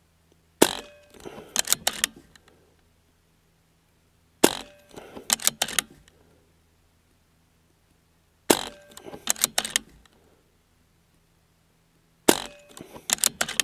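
BARRA 1100Z .22 PCP air rifle fired four times, about four seconds apart. Each sharp shot is followed by a quick run of clicks from the action being worked for the next pellet.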